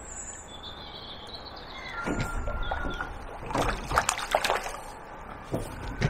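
A hooked mullet splashing and thrashing at the water's surface as it is played in to the net, with a cluster of splashes about four seconds in.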